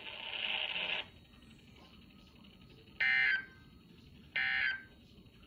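NOAA Weather Radio end-of-message data bursts: two short, loud, buzzing digital tone bursts about a second and a half apart, starting about three seconds in, which signal the end of the alert message. They follow about a second of hiss.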